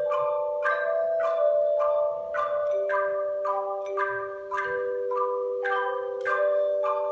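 A church bell choir ringing a slow melody. A new bell note is struck a little under twice a second, over lower bells left to ring on for several seconds.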